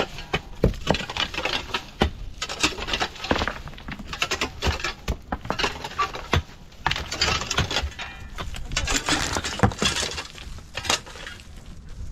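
Pickaxes and hoes striking and scraping hard, stony soil, with loose stones clinking. Several tools work at once, giving many uneven blows.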